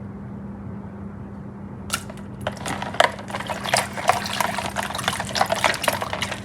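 Water splashing and sloshing in quick, irregular bursts, starting about two seconds in, as toy sea animals are moved about in water by hand, over a steady low electrical hum.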